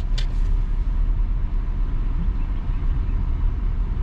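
Steady low rumble inside a car's cabin from the engine and tyres while the car moves slowly.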